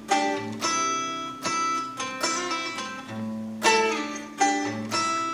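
Acoustic guitar playing a song's instrumental ending: plucked notes and chords about every half second, then a last chord left to ring and fade away near the end. The player calls the tuning bad.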